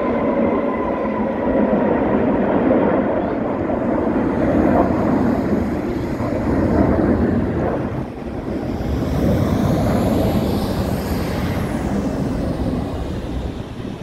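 Jet aircraft of a military flypast passing overhead: a loud, steady roar of jet engines, with a faint high whine coming and going about nine to twelve seconds in.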